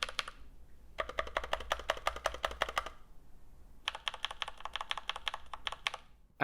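Typing on a mechanical keyboard with a rigid plastic case and Gateron switches: three runs of quick keystrokes with short pauses between them. The keystrokes carry some hollowness from the plastic case.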